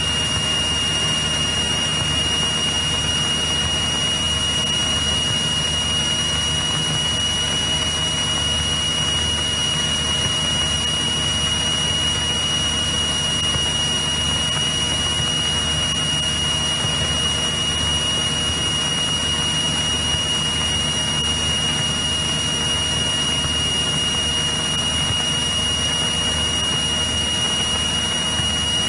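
Cessna 172E Skyhawk's six-cylinder Continental O-300 engine and propeller droning steadily in flight, with a steady high whine over the drone.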